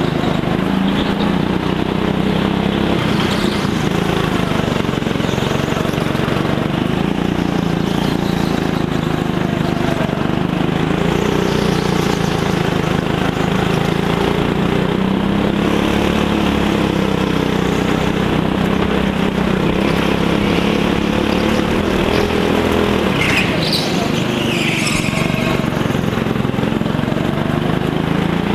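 Go-kart engine running under load, its pitch rising and falling as the kart slows for corners and accelerates out of them. A brief high squeal about 23 seconds in.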